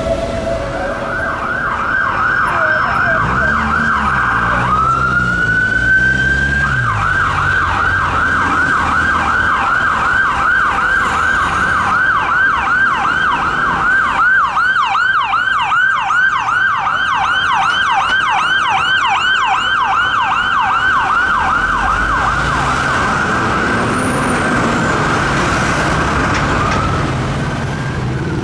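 Emergency vehicle siren on a rapid yelp, sweeping up and down a few times a second. About five seconds in it breaks into one slow rising wail, then returns to the yelp. Traffic rumbles underneath.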